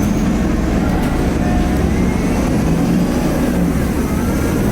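Inside the cabin of a 2010 Nova Bus LFS Articulated under way: its Cummins ISL diesel engine running steadily with a low rumble, and a faint turbo whine gliding up and down above it.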